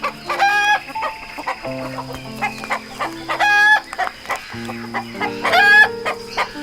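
A chicken clucking repeatedly, with three loud drawn-out calls about three seconds apart, over background music with held notes.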